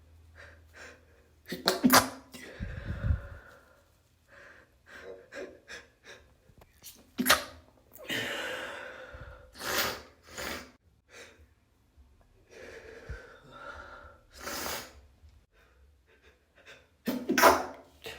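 A person with a congested nose sneezing repeatedly: about five sudden, messy sneezes a few seconds apart, with gasping in-breaths before them.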